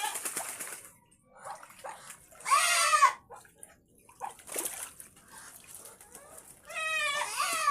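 Farm animals calling over splashing water: three drawn-out calls, at the start, about two and a half seconds in, and near the end, with short splashes between them.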